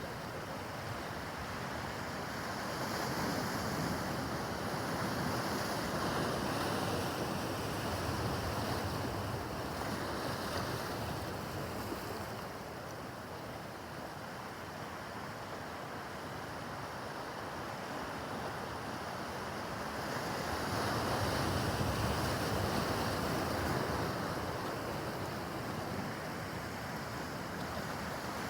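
Rough harbor water: waves washing and breaking, with wind buffeting the microphone. The noise swells and eases every several seconds.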